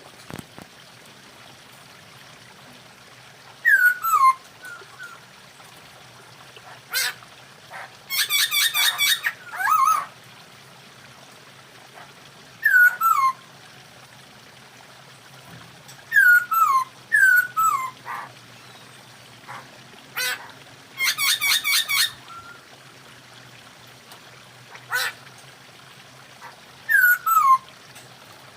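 Poksay hongkong (a laughingthrush) calling: short whistled notes that slide down in pitch, often in twos. Two longer bursts of rapid chattering come about eight and twenty-one seconds in, with a few sharp clicks between.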